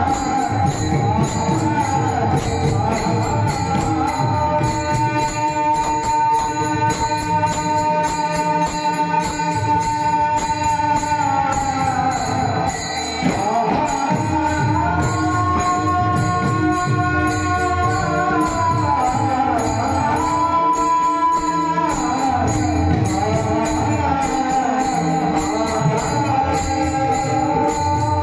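Marathi devotional bhajan music: a held melody line that slides between notes, with small hand cymbals jingling steadily and mridang drumming underneath.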